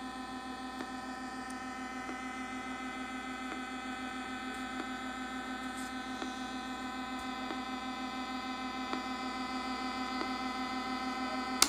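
DIY Weird Sound Generator analog noise synth holding a steady electronic drone of many stacked tones, with a fast pulsing low in it and a faint tick a little faster than once a second. It cuts off with a loud click near the end.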